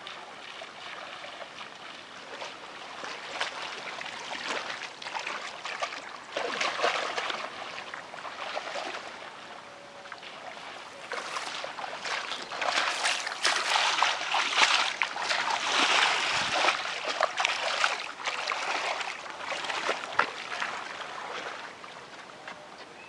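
Splashing and sloshing in shallow, muddy paddy water from wading feet and from hands groping in the water: a run of small irregular splashes that grows busier and louder midway.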